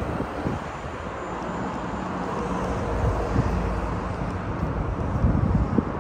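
City street ambience: a steady wash of road traffic, swelling slightly midway, with wind buffeting the microphone in low gusts.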